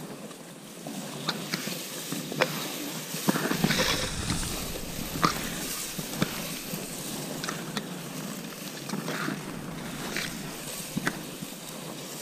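Grass and brush rustling and crackling with scattered sharp snaps, as someone moves through the vegetation. A louder rustling rush with a low rumble comes about four seconds in.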